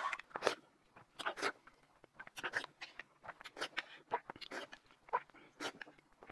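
Scattered light clicks and taps of chopsticks against ceramic plates, with quiet chewing.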